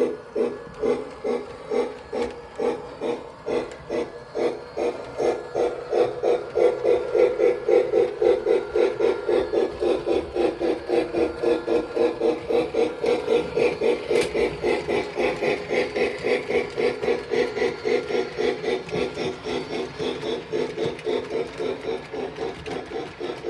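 O scale model train running on the layout, with a steady rhythmic beat of about three a second that goes on without a break.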